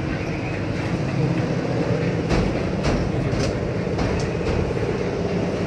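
Concrete mixer running with a steady low rumble, and several sharp knocks and clatters in the middle from concreting work.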